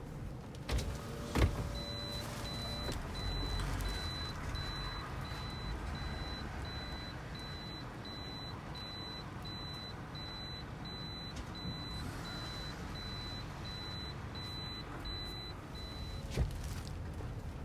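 Toyota Sienta's electronic warning beeper sounding at a steady rate, about one and a half high beeps a second for some fourteen seconds. It is preceded by two clicks and a short hum, and a single click comes near the end.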